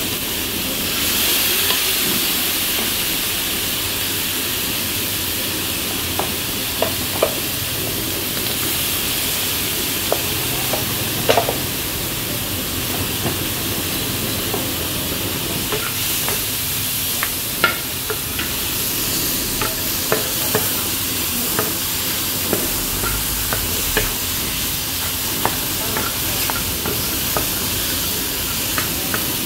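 Seafood stir-fry of shrimp, octopus, clams and onion sizzling in a hot frying pan, the sizzle swelling briefly about a second in. Scattered sharp clicks of a wooden spoon against the pan as it is stirred.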